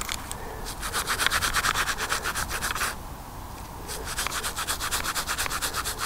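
Small stiff-bristled hand brush scrubbed quickly back and forth over a freshly dug lump of lead to clear the soil off it. Two bouts of fast scratchy strokes, with a short pause around the middle.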